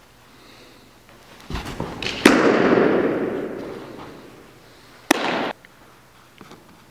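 A baseball pitch: a thud about a second and a half in, then a fastball smacks into the catcher's mitt with a loud, sharp pop that echoes through the large indoor hall for more than a second. Another sharp pop comes about five seconds in.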